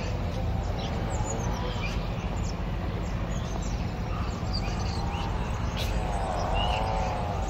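Small birds chirping over a steady low rumble, with a wavering mid-pitched sound that swells and fades twice.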